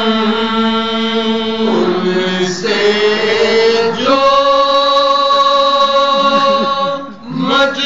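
A group of men singing a soz, a Shia mourning lament, without instruments: a lead voice at the microphone with others singing along, holding long drawn-out notes and changing pitch every second or two, with a brief break near the end.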